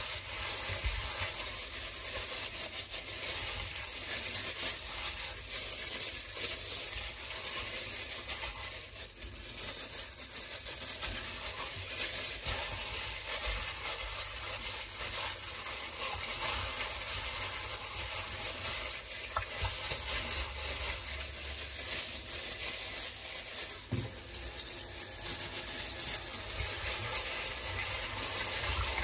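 Raw chicken pieces rubbed and squished by hands in thin plastic gloves in a glass bowl of vinegar water, giving steady wet crackling and sloshing. Near the end the kitchen tap runs into the bowl.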